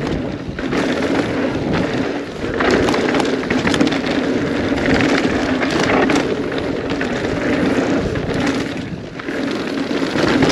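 Mountain bike running fast down a dirt bike-park trail: a continuous rush of wind on the microphone and tyre noise, with the bike rattling and knocking over bumps.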